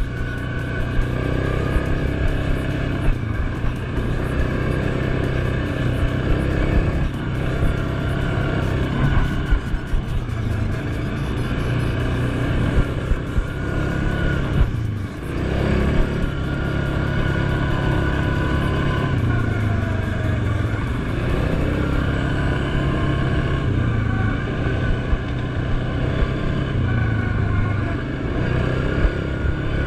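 Single-cylinder engine of a 2019 Suzuki KingQuad 750 ATV running under way on a dirt trail, its pitch rising and falling repeatedly as the throttle is opened and eased, with scattered short knocks.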